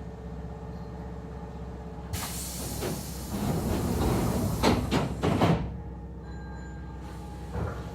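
Hankyu 3300-series commuter car standing at a platform: a hiss of air from the pneumatic door engines starts about two seconds in, and several knocks follow near five seconds in as the sliding doors shut. A steady hum from the stationary car runs underneath.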